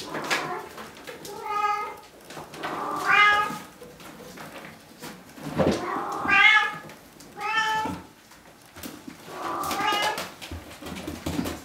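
Young Bengal kittens meowing, about five high-pitched mews a second or two apart, some rising then falling in pitch.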